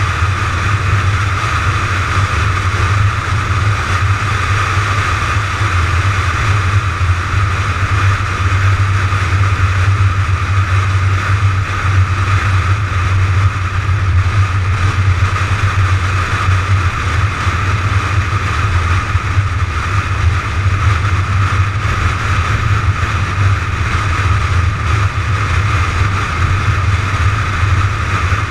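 A McLaren 570GT cruising at steady highway speed, picked up by a camera on the car's nose: a loud, even drone of driving noise with a deep low hum, with no revving or gear changes.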